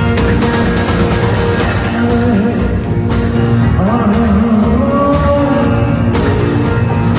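Live rock band playing with a steady drum beat and electric guitars. A male lead voice sings from about two seconds in.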